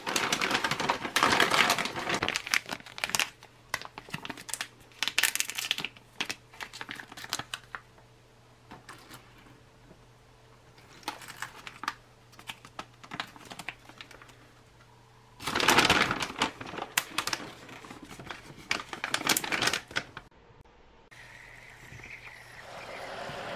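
Plastic ration packaging crinkling and rustling in irregular bursts as hands handle and pack the heating bag of a self-heating field meal. A steady hiss starts near the end and grows louder.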